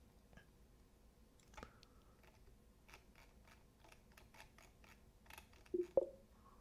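Faint, rapid clicks, then near the end a louder pair of short pitched click sounds: the press-and-release sound cue of an MRTK HoloLens 2 toggle button being pushed by a simulated hand.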